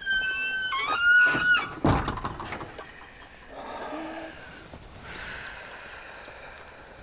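Door creaking open on its hinges: a long squeak that steps down and back up in pitch, followed by a knock about two seconds in.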